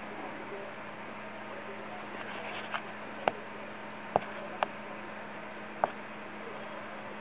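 Five sharp single clicks of a laptop's touchpad buttons, spread from about three seconds in to near six seconds, over a steady low hum.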